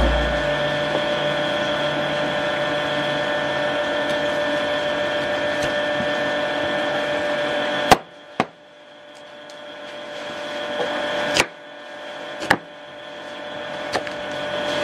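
A knife chopping peeled tuber on a plastic cutting board: a handful of sharp knocks, the first about eight seconds in and the rest a second or so apart. Before the chops there is a steady hum of several held tones.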